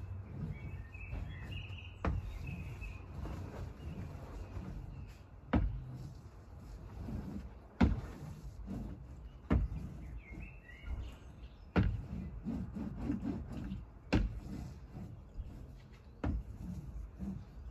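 Wooden rolling pin rolled back and forth over a diamond painting glued to a board, a low rumble with a sharp knock about every two seconds. It is pressing the canvas onto the glue and pushing raised resin diamonds back down. Birds chirp briefly near the start and about ten seconds in.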